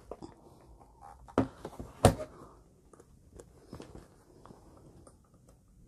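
Handling noise as a digital kitchen scale is set down on a table: two sharp knocks about one and a half and two seconds in, then light taps and rustling.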